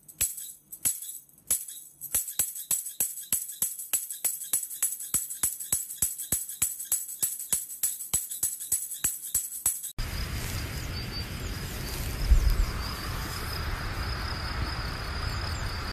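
A steady beat of jingling taps, about four a second, for the first ten seconds. After that, steady wind-like outdoor noise with a faint thin high tone.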